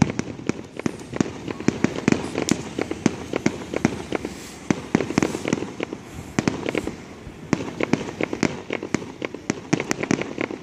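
Aerial fireworks display: a continuous barrage of sharp bangs from bursting shells, several a second.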